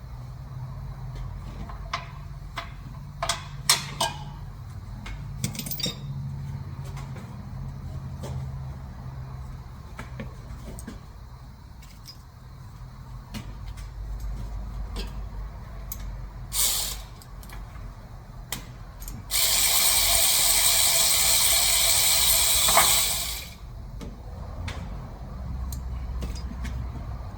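Mechanic's tool work on a car: scattered sharp metallic clicks for the first few seconds, then a loud steady hiss lasting about four seconds that cuts off.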